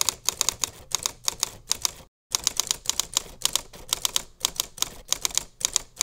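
Typewriter keystroke sound effect: a rapid run of sharp key clicks, about six a second, keeping time with on-screen text being typed out. There is a brief pause about two seconds in.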